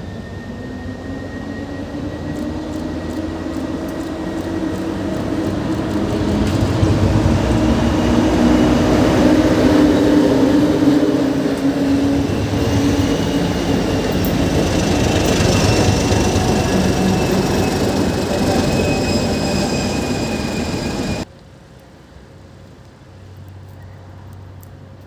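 A locomotive train, EU07 electric locomotives with a TEM2 diesel, departing past close by. It grows louder over the first seven seconds, then holds steady with rumble, wheel noise and high, slowly gliding whines. It cuts off abruptly about 21 seconds in, leaving a much quieter background.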